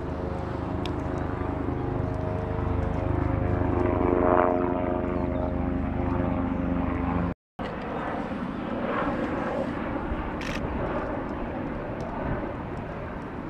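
Engine drone of a light propeller aircraft passing overhead, loudest about four and a half seconds in. The sound breaks off briefly about halfway through, leaving a rougher outdoor background noise.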